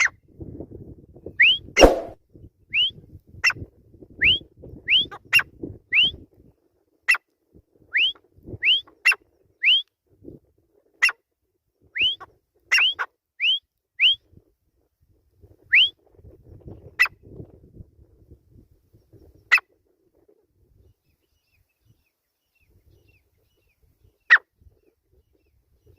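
Grey francolin calling: a run of short, rising whistled notes at about one a second, mixed with sharp clicking notes. The calling thins out to a few scattered clicks after about sixteen seconds.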